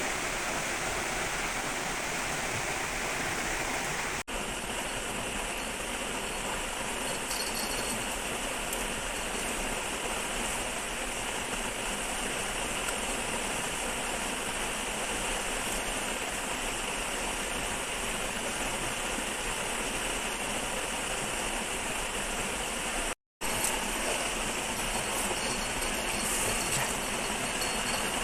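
Shallow river water flowing steadily, a continuous even rush of water, briefly cut off for a moment about 23 seconds in.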